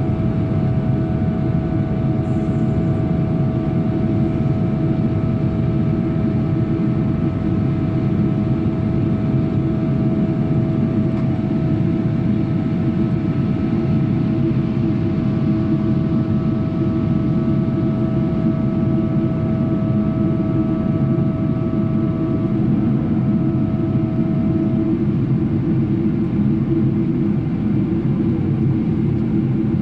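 Steady cabin roar of a Boeing 777-300 airliner after takeoff, with the jet engines' whine heard as a few steady tones; two of the tones fade out about three-quarters of the way through.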